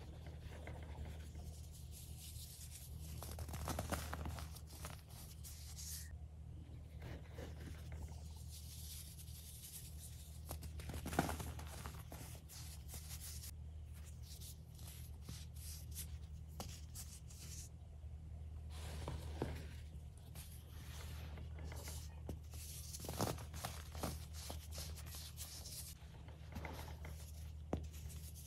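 Dyed baking soda crunching and crumbling under fingers as molded stars and packed powder are pressed and broken. It makes irregular crackling and rubbing, with a few sharper crunches, over a steady low hum.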